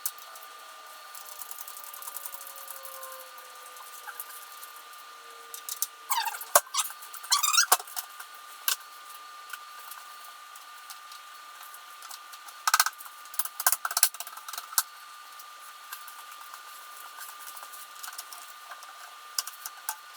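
Hand-tool work on motorcycle parts: metal clinks, scrapes and rattles of a wrench and bolts, in two bouts about six and thirteen seconds in, over a faint steady high-pitched tone.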